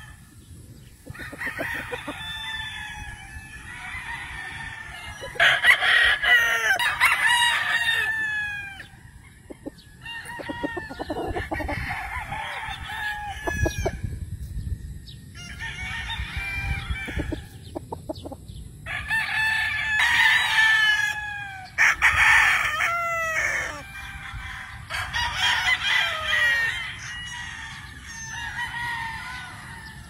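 Several gamefowl roosters crowing one after another across the farmyard, about a crow every two to three seconds. Some crows overlap, and each ends in a falling tail.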